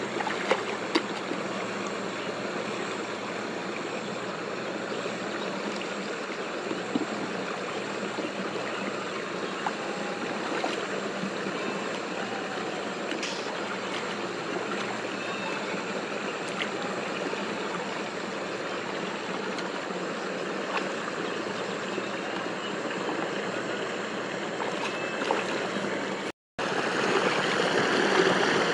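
Steady rush of flowing water, with a few faint clicks; it breaks off for an instant near the end and comes back louder.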